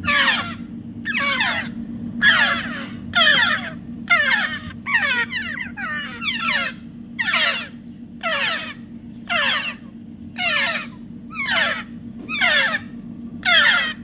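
Young African grey parrots calling over and over: short, falling calls about one a second, over a steady low hum.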